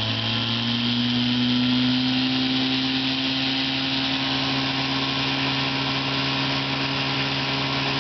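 A 1955 Johnson 5.5 hp CD-12 two-cylinder two-stroke outboard running at high throttle, driving the boat up onto plane. Its steady pitch creeps slightly higher over the first couple of seconds, then holds.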